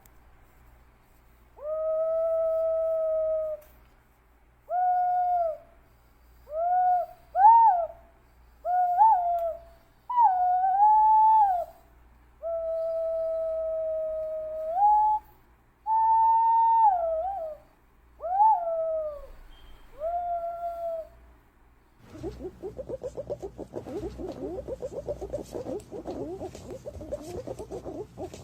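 Green pigeon song used as a lure call: a series of mellow whistled notes, some held level for a second or two and others swooping up and down in pitch. About 22 seconds in it gives way to a dense, rapid chattering.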